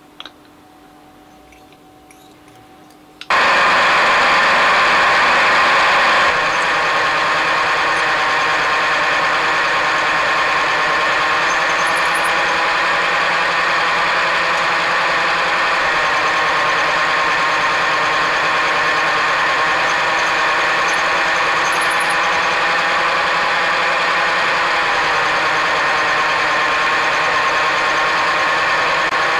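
Vertical milling machine switched on with a sudden start about three seconds in, then running steadily at a constant pitch as its end mill cuts the part held in the vise. A faint click comes just before the start.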